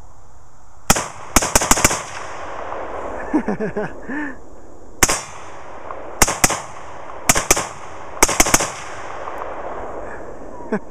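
Mini Draco AK-pattern pistol in 7.62x39 firing: a single shot, then a quick string of four, followed by a single shot, two pairs and a string of three spread over the next several seconds, each with a ringing tail.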